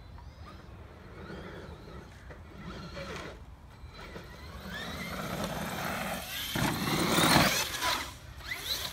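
Cen Reeper 1/7-scale RC monster truck's electric motor whining in repeated rising revs as it accelerates over dirt jumps. It grows louder as it approaches and is loudest about seven seconds in as it launches off a jump, with a hiss of tyres spinning on loose dirt.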